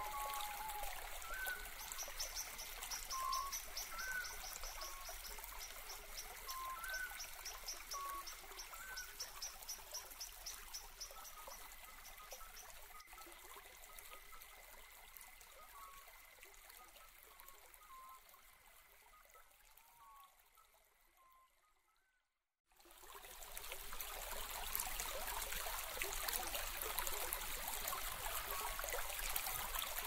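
Steady rush of running water, with a bird giving short repeated chirps about once a second and a rapid high trill through the first ten seconds. The sound fades out to silence about twenty seconds in and returns a couple of seconds later.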